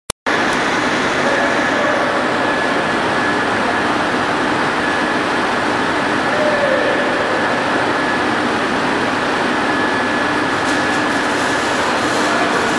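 Twist and Sun pendulum amusement ride running with its loaded gondola swinging: a steady mechanical rush with a faint high whine over it.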